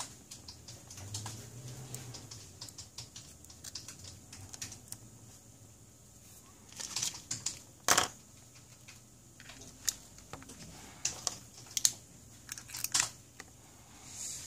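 Light clicks and taps of plastic spring clamps and a smartphone being handled on a tabletop. A burst of sharper clicks comes about seven to eight seconds in, and several more follow near the end as a clamp is clipped onto the phone's edge.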